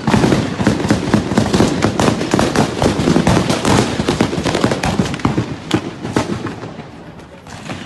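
Dense, rapid crackling and popping, many sharp pops a second, thinning out and fading over the last two seconds.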